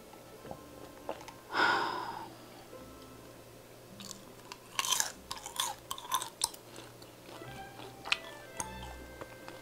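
Close-miked mouth sounds of a person eating: a loud breathy exhale about a second and a half in, then chewing with a run of sharp, wet clicks and smacks from around four seconds.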